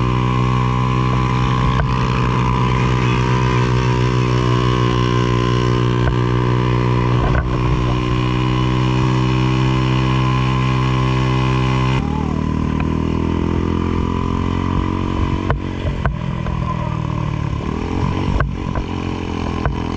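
An engine running steady and unchanging; about twelve seconds in it cuts to a different engine sound that drops in pitch, as if slowing down.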